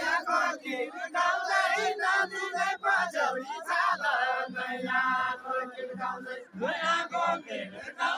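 A group of men singing together in chorus, a chanted deuda-style folk song of far-western Nepal, in short repeated phrases.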